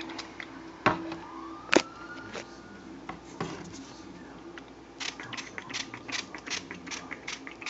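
Pump spray bottle of butter spray spritzing onto an ear of corn: a couple of sharp clicks about a second in, then a quick run of short spritzes, about four or five a second, in the second half.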